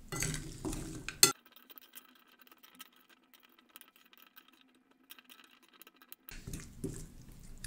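A metal spoon stirring diced raw meat and vegetables in a glass bowl: wet squishing and scraping, with a sharp clink of spoon on glass about a second in. Through the middle the stirring is sped up, and it is heard only as a faint, rapid ticking patter before the normal stirring sound returns near the end.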